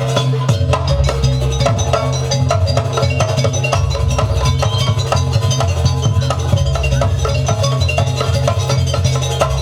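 Jaranan barong accompaniment played by a traditional Banyuwangi ensemble: drums and tuned percussion keep up a dense stream of strokes over a deep bass, with a held note sounding above them.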